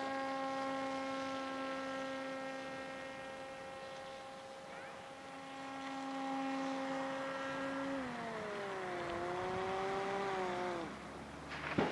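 Electric motor and propeller of a foam flying-wing RC plane droning overhead at a steady pitch, then dropping in pitch about eight seconds in and cutting out shortly before the end as the plane goes into a glide. A short knock right at the end.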